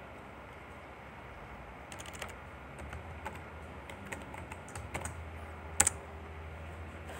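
Computer keyboard keys clicking irregularly as a short comment is typed, with one louder key click about six seconds in, over a faint steady low hum.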